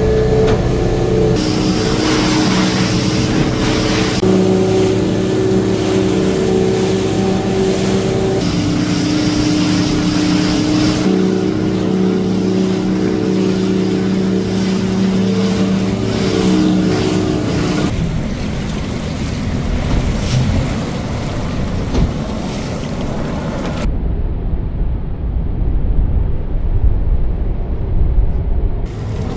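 Boat's motor running steadily, its hum jumping in pitch between cuts, giving way about two-thirds of the way through to rushing wind and water noise with a heavy low rumble.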